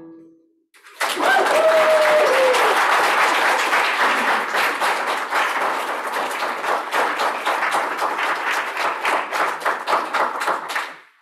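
A final piano chord fades out, and about a second later an audience breaks into dense applause that carries on steadily and stops near the end.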